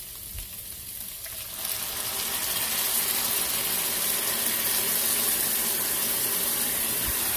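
Pork braising liquid poured from a plastic container into a hot pan of oil-fried pork pieces. About a second and a half in it sets off a loud, steady hiss and sizzle that holds to the end.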